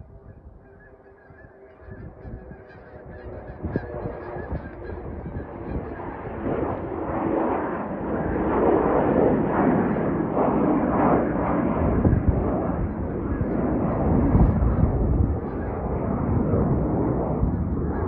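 Jet noise from an Embraer E175's twin GE CF34 turbofans at takeoff power on climb-out. It grows louder over the first several seconds, then stays loud with a rough, crackling texture that the uploader calls a weird engine sound.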